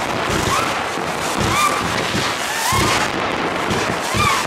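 Consumer firework batteries (Joge Eden and Röder Moskitoschwarm) firing: a dense, continuous crackle of pops and small bangs, with short chirping whistles from the small flying effects.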